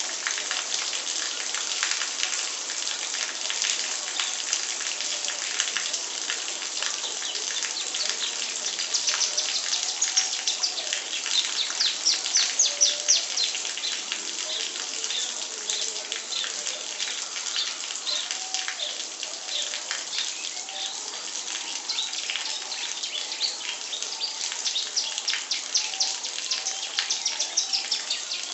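A songbird singing continuously in rapid chirps and quick sweeping trills, over a steady hiss of rain.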